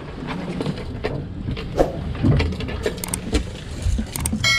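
A sportfishing boat's engine rumbling low and steady, with scattered knocks and clicks on deck.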